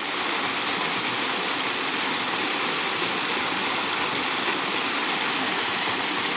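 Waterfall water rushing steadily, an even noise with no breaks.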